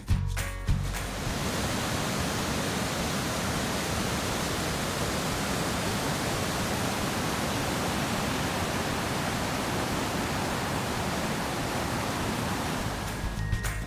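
Fast-flowing mountain creek rushing steadily over rocks.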